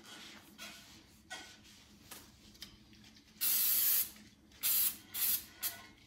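Aerosol can of wax and grease remover spraying onto a sanded, primed metal strut brace to degrease it before base coat. There are a few soft rubbing sounds first, then one long hiss and three shorter spurts.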